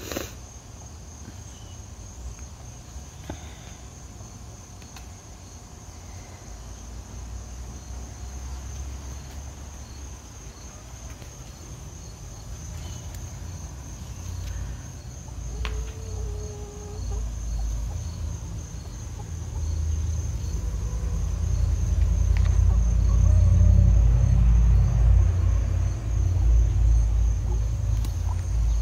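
Crickets chirping in a steady, even high pulse, with a low rumble on the microphone that grows louder through the second half.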